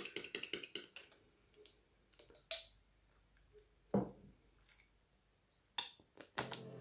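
Faint scattered clicks and light taps from handling a skincare serum's packaging and applying it, with a short cluster at the start and a slightly fuller knock about four seconds in.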